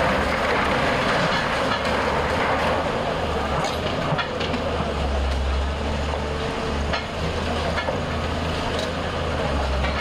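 Diesel engine of a heavy demolition machine running with a steady low rumble, with scattered knocks and clatter, the sound of structures being knocked down.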